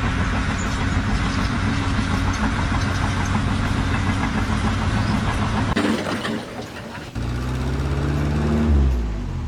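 An engine running steadily. About six seconds in the sound breaks off, and a second engine sound starts about a second later; its pitch drops near the end.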